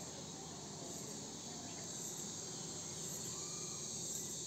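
A steady, high-pitched insect chorus, unbroken throughout.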